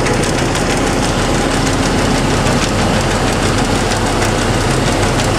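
LeBlond 1610 Servo Shift heavy-duty engine lathe running after start-up: its 20 HP motor drive gives a steady mechanical whir over a low hum.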